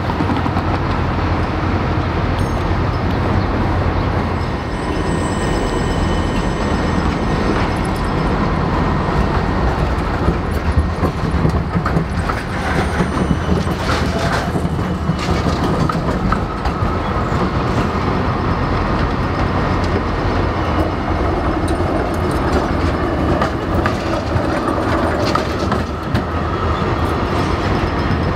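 Melbourne electric trams passing close on street track, steel wheels clacking over rail joints and crossings, with a cluster of clicks about halfway through over a steady rumble.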